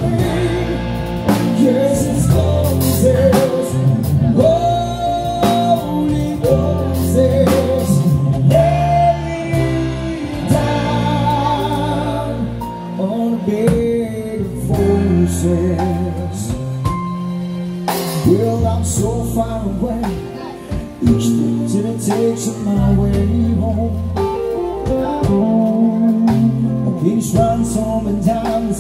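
Live band playing a slow rock ballad: a man singing into a microphone over electric guitar, drum kit and keyboard.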